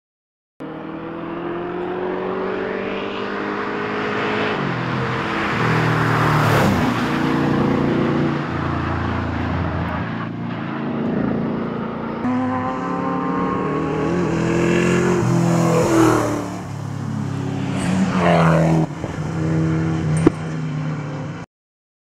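Holden VH Commodore SS Group 3's V8 engine under hard acceleration. Its pitch climbs through each gear and drops at each upshift, over several runs of the car. There is a louder pass near the end and a single sharp crack just before the sound stops.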